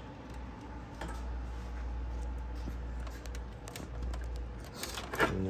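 Light clicks and rattles of plastic and metal as a car radiator and its mounting brackets are handled and worked loose by hand, over a steady low hum.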